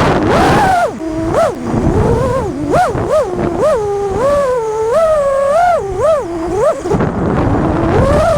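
FPV freestyle quadcopter's brushless motors whining, the pitch swinging up and down about twice a second with repeated throttle changes. A rush of wind noise comes in the first second and again near the end.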